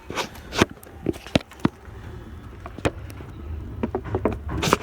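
Toei Shinjuku Line subway train, heard from inside the car, with a steady low rumble and a string of irregular sharp clicks and knocks as it gets under way after the doors close.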